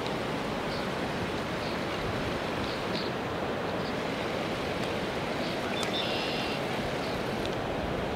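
Steady rush of flowing river water, an even hiss with no breaks. Faint high chirps sound now and then above it.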